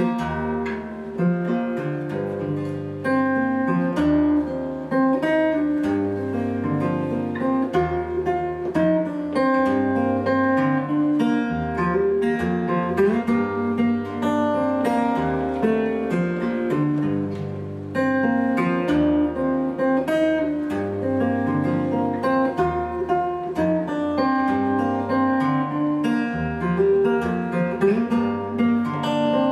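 Solo acoustic guitar played fingerstyle: a picked melody over a moving bass line, with a brief lull about two-thirds of the way through.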